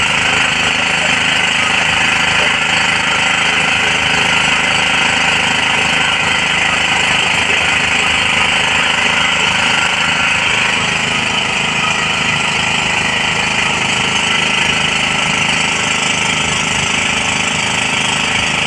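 An engine running steadily over the hiss of water spraying from a fire hose onto a burnt-out boat.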